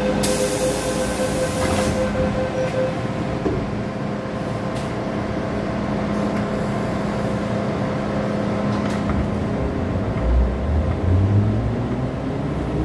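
MTR M-Train metro car pulling away from a station: a burst of air hiss lasting about two seconds near the start, then the steady hum of the train running, with a low rumble swelling near the end.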